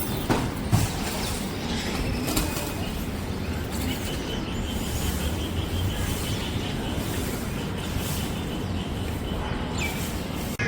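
Outdoor city ambience: a steady low rumble of distant traffic, with a couple of light knocks in the first second and a faint high steady tone through the second half.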